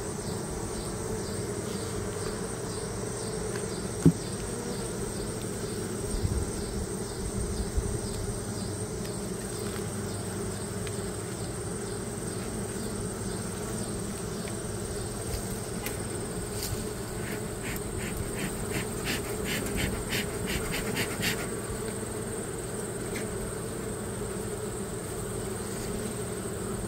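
Honeybees buzzing in a steady hum over an open hive. A single knock sounds about four seconds in, and a quick run of light clicks comes about two-thirds of the way through.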